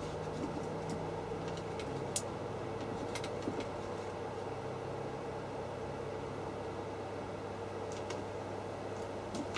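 A steady low mechanical hum from a running appliance, with a few faint, sharp clicks of a screwdriver and small metal tools being handled at the camera's hinge.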